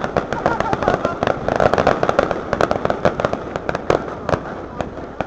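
Fireworks crackling: a dense run of rapid sharp pops and crackles that thins out to scattered pops near the end.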